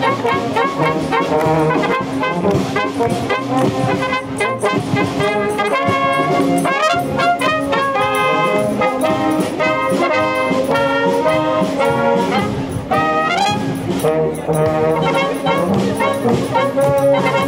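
Brass band playing a march as it marches, with trumpets and low brass carrying the tune over a steady beat.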